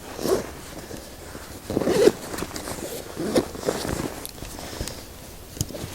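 Nylon backpack being turned around and handled: fabric rustling and scraping, with a zipper pulled open on a compartment.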